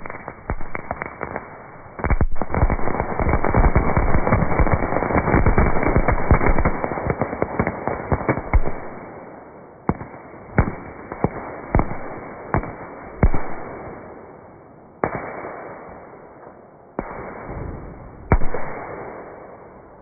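Fireworks going off inside a microwave oven and blowing it apart: a dense, rapid crackle of many bangs for several seconds, then single bangs a second or two apart, the loudest near the end.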